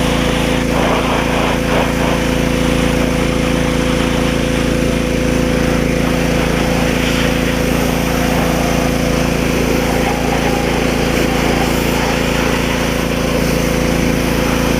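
Pressure washer running steadily, its motor hum under the hiss of the water spray.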